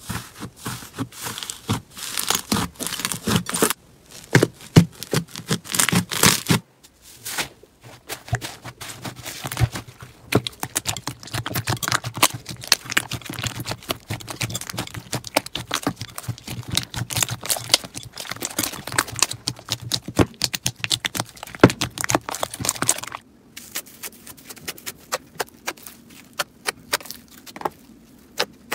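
Slime being squeezed and worked by hand, with dense crackling and popping clicks. It breaks off briefly about four and seven seconds in, and from about 23 seconds in the clicks become quieter and sparser.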